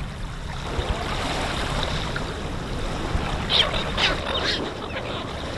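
Steady rush of flowing water, with a few short high chirps about three and a half to four and a half seconds in.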